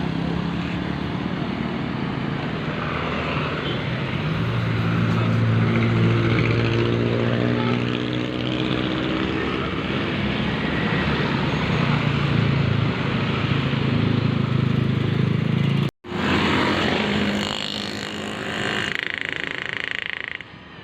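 A large bus's engine running as it passes close by, its pitch bending down and up, with road noise. The sound breaks off abruptly once, then vehicle noise resumes.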